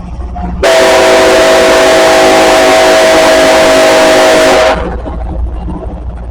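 Locomotive air horn sounding one long, loud blast of about four seconds, a chord of several steady tones, starting about half a second in and cutting off sharply. The low rumble of the approaching train runs underneath and carries on after the horn stops.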